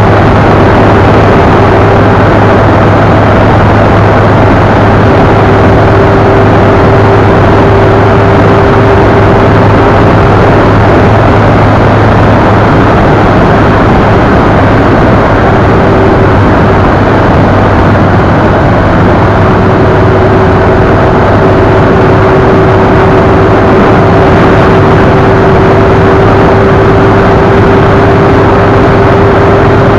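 Loud, steady wind rush on the microphone and a steady engine hum from a vehicle cruising at highway speed.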